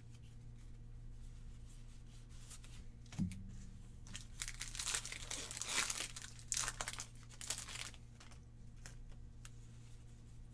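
Foil wrapper of a trading-card booster pack crinkling and tearing as it is opened, a few seconds of crackling in the middle, over a steady low hum.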